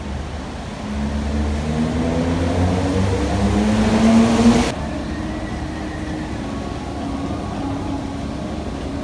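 A vehicle accelerating along a wet street, its engine note rising and growing louder with a swelling hiss, cut off abruptly about four and a half seconds in. A steady, quieter traffic hum follows.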